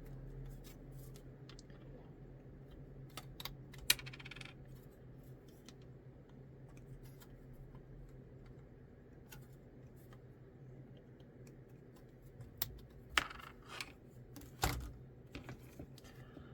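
Small plastic model-kit parts and hobby tools clicking and tapping on a hard work surface: scattered sharp clicks, a loud one about four seconds in and a cluster near the end, over a low steady hum.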